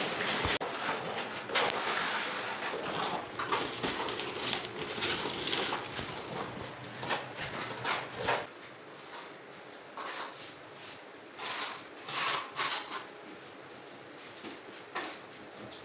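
Paper sack of dry tile adhesive powder rustling and pouring into a mortar bucket, a dense crackling hiss for about eight seconds, then quieter scattered scrapes and knocks.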